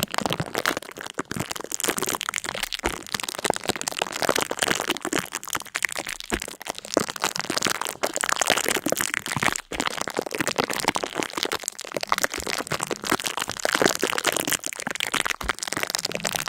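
Continuous dense crackling: many small sharp cracks and crinkles in quick irregular succession, with a brief break about ten seconds in.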